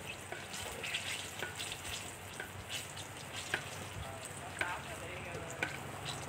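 Battered banana fritters deep-frying in a wok of hot oil: steady sizzling with scattered pops and crackles.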